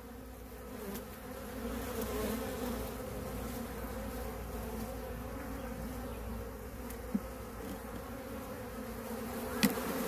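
Steady buzzing hum of a honeybee colony in an opened hive, the bees stirred up by the inspection. A single sharp click near the end.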